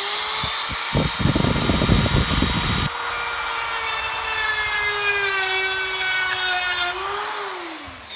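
High-speed electric power tool spinning up and running. For about two seconds it grinds against the stripped screw, then it runs free and winds down near the end.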